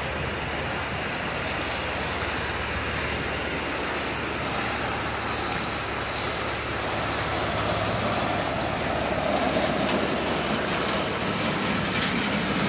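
Floodwater rushing with a steady hiss, growing a little louder after about seven seconds.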